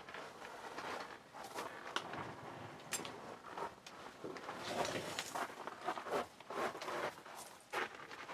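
Scuffing and shuffling on gritty, sandy ground with clothing rustle as a person gets up from a crouch in a narrow rock gap and steps out, with a couple of sharp clicks along the way.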